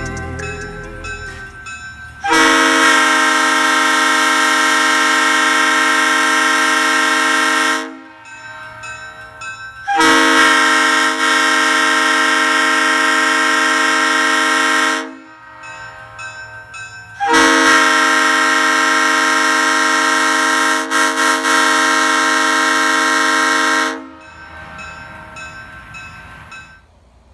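Leslie Supertyfon RS3L three-chime locomotive air horn, Tampa version with bells 25, 31 and 44, sounding three long blasts of one steady chord, each about five to seven seconds, with short pauses between.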